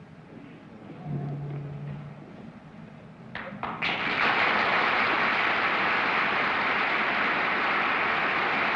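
Studio audience applauding: a few scattered claps about three seconds in, then steady applause from about four seconds on.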